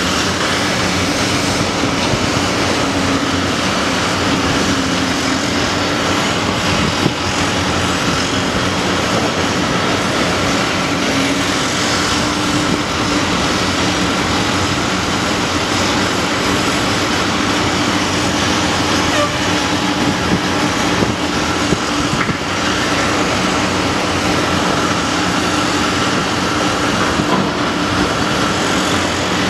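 Cat 345CL hydraulic excavator and a second excavator working in blasted rock: a steady, loud diesel-engine and hydraulic drone with a constant hum under load, and a few brief knocks.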